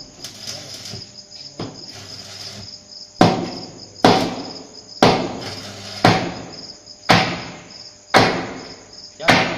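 Heavy hammer blows on metal, about one a second from about three seconds in, each ringing out and fading before the next, over a steady high pulsing chirp.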